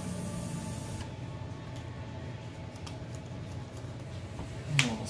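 Trading cards being handled on a playmat: a deck shuffled in the hands and cards laid down, heard as a brief hiss, then a few faint clicks and taps, and a sharper snap near the end, over a steady low room hum.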